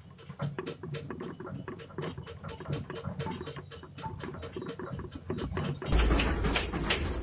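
Household objects and fittings rattling and clicking rapidly and irregularly as a house shakes in an earthquake. About six seconds in it turns louder, with the rattling over a deep low rumble.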